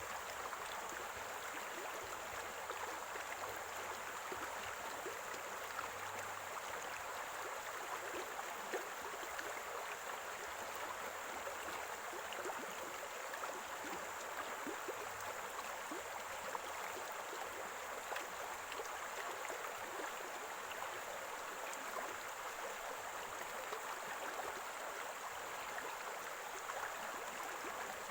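Small stream of water running and gurgling steadily over stones, with many small splashes and drips.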